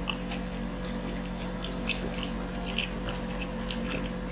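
Close-up eating sounds: fried chicken being chewed with small wet smacks and clicks of the mouth, scattered irregularly several times a second, over a steady low hum.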